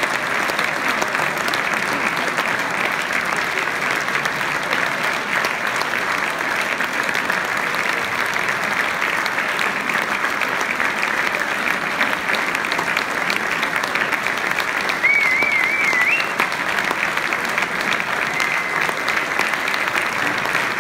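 Large audience applauding, a dense, steady mass of clapping. About three quarters of the way through, a short wavering whistle rises in pitch over the clapping.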